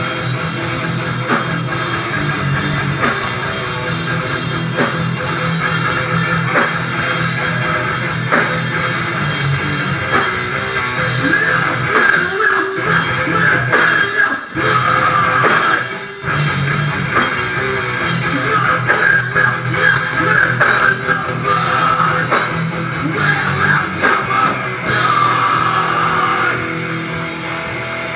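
Heavy rock band playing live: distorted electric guitars, bass and a drum kit, loud and dense, with two brief breaks about halfway through.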